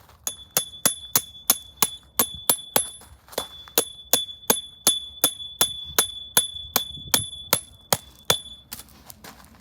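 Metal being struck rapidly and repeatedly, about three blows a second, each blow leaving a high ringing tone; the strikes pause briefly near three seconds in and stop shortly before the end.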